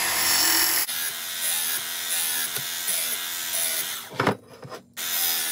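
Work Sharp Mk II powered belt sharpener running with a fine 220-grit belt while a hatchet edge is passed across it, honing the edge to take off the burr. The motor and belt make a steady grinding hum, loudest in the first second. The noise breaks off briefly a little after four seconds in, then starts again.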